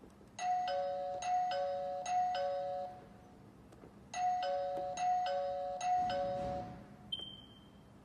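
Electronic ding-dong doorbell chime from a fingerprint smart glass-door lock, set off by a touch on its keypad. It plays twice, three ding-dongs each time. Near the end comes a click and a short high electronic beep.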